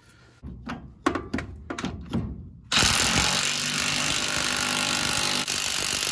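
Impact wrench running on the 1 5/16-inch socket, driving the new pitman arm's retaining nut tight onto its wedge fit. It starts nearly three seconds in and runs evenly, after a few sharp metallic knocks as the nut and socket are put on.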